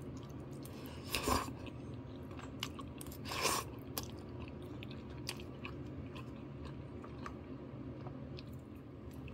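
A person chewing food close to the microphone, with small clicks and two louder mouth sounds about a second and three and a half seconds in, over a steady low hum.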